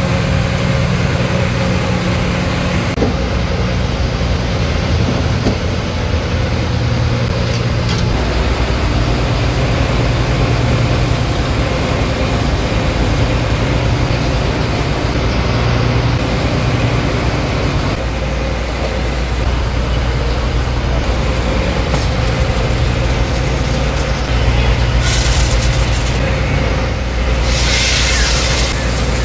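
Fishing boat's engine running with a steady low drone. Near the end, a short sizzle as sliced onions are tipped into hot oil in an aluminium pot.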